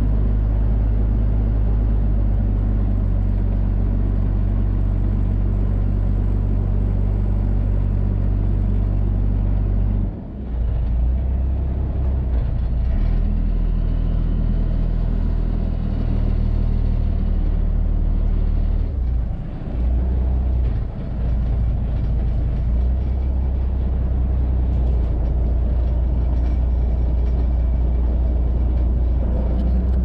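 Small aluminum boat's engine running with a steady low rumble. About ten seconds in it drops off sharply and comes back at a different pitch, and it dips briefly a few more times midway, as the boat is slowed and brought up to a dock.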